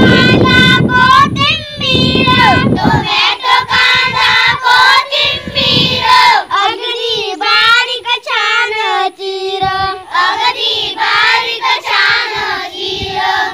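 A group of children singing a Marathi poem in unison, the melody wavering and breaking phrase by phrase. A deep rumble sits under the singing for about the first three seconds, then drops away.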